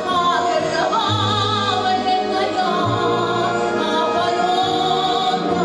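A woman singing a slow, solemn song in a classical style, with wide vibrato on long held notes. She is accompanied by an orchestra sustaining low chords underneath, and the word 'окровавленная' is sung about two seconds in.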